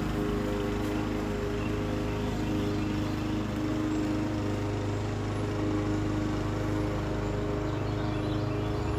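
Lawn mower engine running at a steady speed, an even drone that holds the same pitch throughout.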